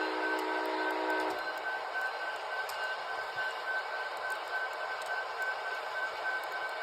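A Nathan K5LA five-chime train horn, low-toned, holds a chord that cuts off sharply just over a second in. A steady hiss follows.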